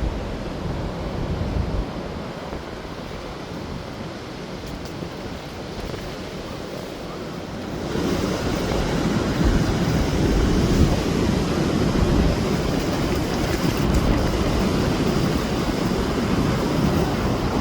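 Heavy surf from a cyclone swell, waves breaking and washing in a steady roar, with wind buffeting the microphone. It grows louder about halfway through.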